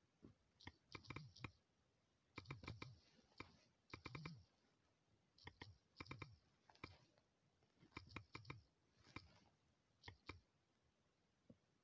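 Faint typing clicks on a smartphone's on-screen keyboard, coming in quick clusters of a few taps with short pauses between words.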